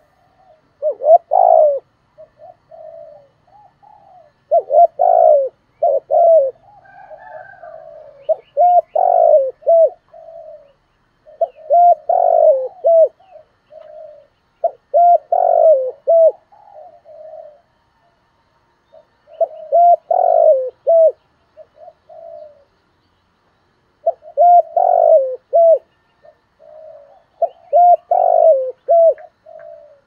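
Spotted dove cooing: repeated song phrases of a few low, rhythmic coos, coming every three to four seconds with brief pauses between. It is the decoy song used to provoke wild spotted doves into answering.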